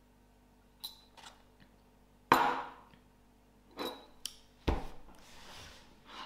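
A mug set down on a table with a clunk about two seconds in, among a few lighter clicks and knocks of handling; a duller thump near the end, followed by a soft rustle.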